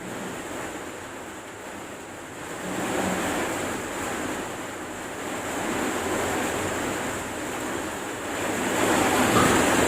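A sleeping man breathing heavily through an open mouth as he snores, each breath a noisy swell about every three seconds.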